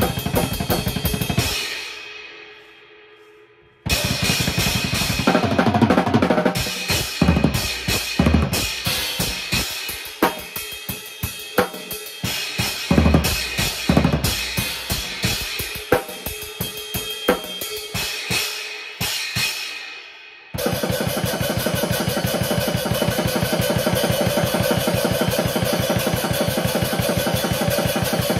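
Drum kit played hard: a quick flurry that stops and rings out, then a looser groove of kick drum, snare and cymbal hits, then after a sudden stop a fast, even stream of rapid strokes for the last third.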